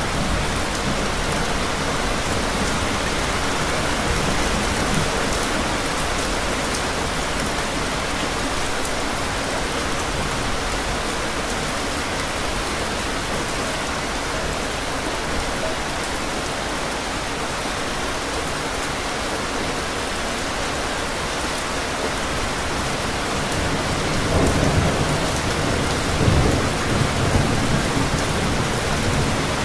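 Steady rain falling, with two low rumbles of thunder near the end.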